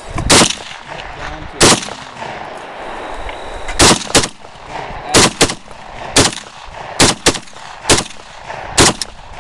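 Rifle with a drum magazine fired one shot at a time: about eleven sharp shots at uneven intervals, several in quick pairs.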